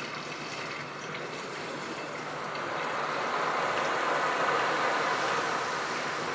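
Museum gallery soundscape played over ceiling speakers: a steady rushing ambience, swelling slowly from about halfway through.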